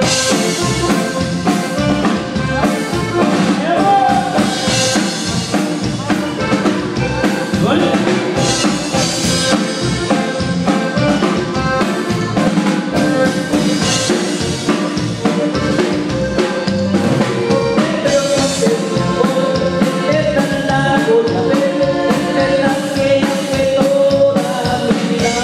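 A song playing loud over a sound system, with a drum-kit beat and a singing voice.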